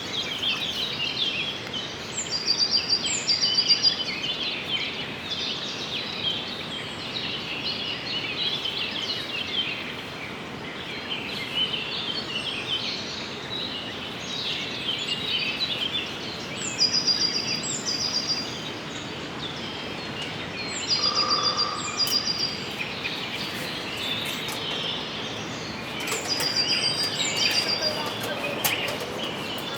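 Wild birds calling and chattering over a steady outdoor hiss. A short high call ending in a quick run of notes comes in pairs four times, about two, seventeen, twenty-one and twenty-seven seconds in.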